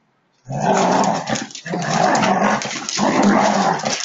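A husky and a black dog growling at each other in a friendly play fight. The growling starts about half a second in and runs in long, rough stretches with only brief breaks.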